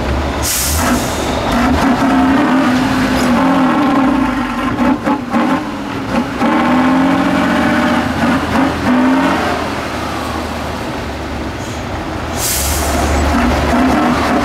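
Tatra 813 8x8 truck's air-cooled V12 diesel working under load as it climbs over a steep rutted dirt slope, its pitch rising and falling with the throttle. A loud hiss of air sounds twice, about half a second in and again near the end, with a few sharp knocks around the middle.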